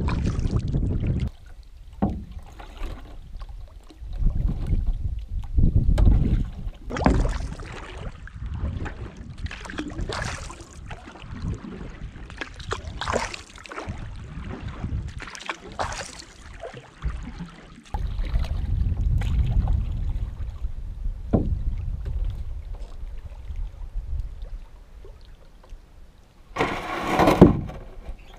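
Lake water splashing and rushing along the hull of a paddled canoe, heard close to the waterline, with wind rumbling on the microphone. There is a brief, louder rush of noise near the end.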